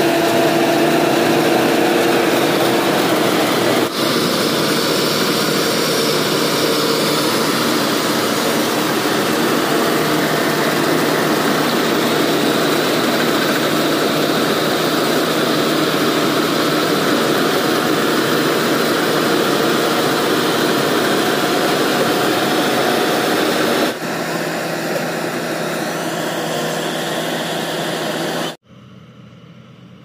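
New Holland TC5.30 combine harvester running at close range while harvesting rice: a steady, loud engine and threshing-machinery noise. Near the end the sound drops abruptly to a much fainter steady run.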